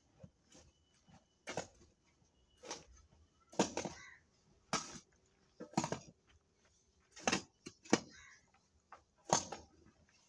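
A metal hoe blade scraping and scooping loose dry soil, in about nine irregular strokes roughly a second apart, as a small hole is filled back in.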